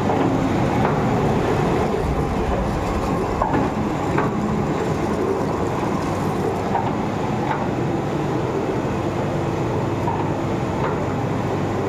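Puffed-rice (muri) roasting machine running: its rotating steel drum turns with a steady mechanical rumble while rice grains tumble and rattle inside and pour out, with a few faint clicks.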